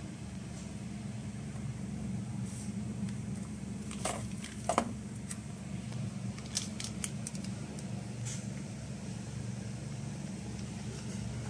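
A few light clicks and taps of objects being handled, the sharpest about four and a half seconds in and a small cluster a couple of seconds later, over a steady low hum.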